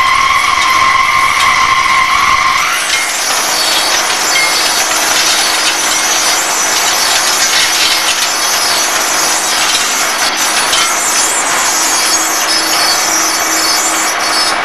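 Hegenscheid 105 underfloor wheelset lathe cutting the rim of a railway wheel: a high squeal of the cutting tool for the first few seconds stops suddenly, leaving a steady harsh hiss of the cut and flying chips.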